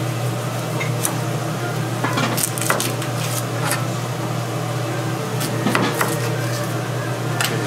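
Metal utensils and dishes clinking and scraping, in irregular clusters of sharp clinks, over a steady low hum.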